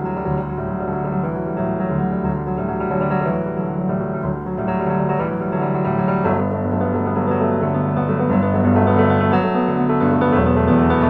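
Background piano music with slow, sustained notes; about six seconds in, fuller low notes come in and it grows a little louder.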